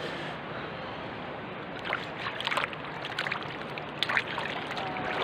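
Calm sea water lapping and splashing against the side of a small boat, with a run of small, sharp splashes and drips in the second half.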